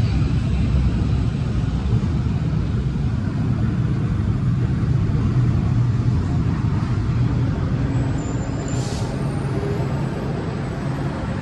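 Izmir Metro train pulling into an underground station and slowing to a stop: a steady low rumble, with a short high-pitched squeal and hiss about eight and a half seconds in.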